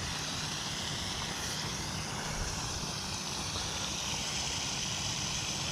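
Steady rush of running water flowing into a pond.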